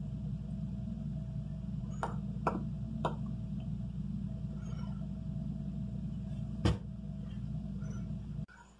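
Steady low background hum with a few short clicks, the loudest near seven seconds in; the hum cuts off suddenly near the end.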